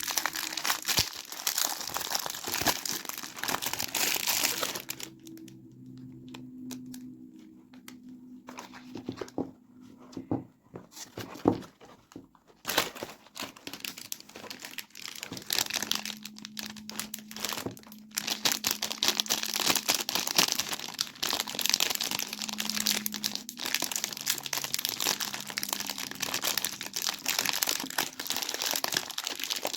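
Soap packaging being crinkled and torn open by hand. Dense crinkling and tearing at first, then a quieter stretch of a few seconds with scattered sharp taps, then steady crinkling again.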